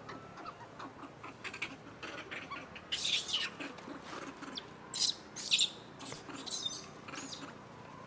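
A baby macaque gives a series of short, high-pitched squeals, loudest around the middle.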